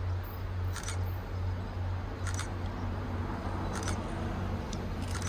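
Steady low rumble of an approaching MBTA commuter rail train, with short sharp high ticks about every second and a half.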